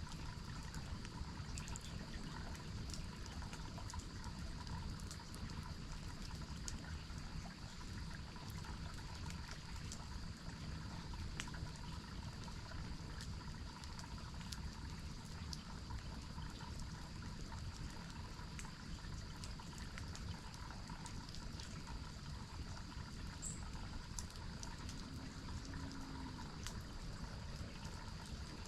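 Water from a forest waterfall and stream running steadily, with faint scattered pops and crackles from a campfire and a single short high bird chirp about 23 seconds in.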